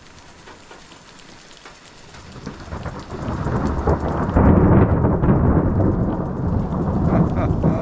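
Thunder over light rain. Scattered raindrop patter at first, then a rumble builds from about two and a half seconds in and turns loud about four seconds in, rumbling on to the end.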